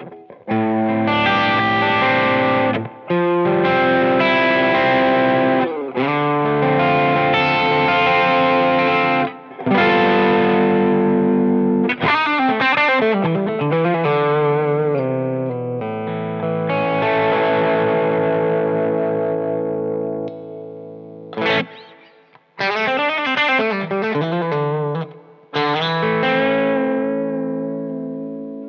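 Overdriven electric guitar, an UMEDA UST QM24 super strat on its bridge humbucker, playing distorted chords and riffs in phrases with short breaks between them. Notes bend and waver in pitch around the middle and again later. Near the end, after a short break, it plays on the bridge pickup split to single coil.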